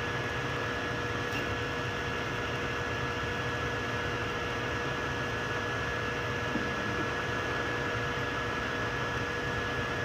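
Steady whir and hum of running 3D printers' fans, with two constant whining tones, one low and one high, and a single faint tick about six and a half seconds in.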